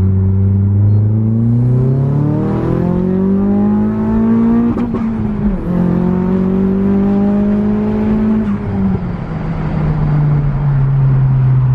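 Nissan S15 Silvia's turbocharged SR20DET four-cylinder engine, heard from inside the cabin, pulling hard with its pitch rising for about five seconds. The note dips briefly at a gear change, climbs again, then drops off about eight and a half seconds in as the throttle is lifted and slowly falls away.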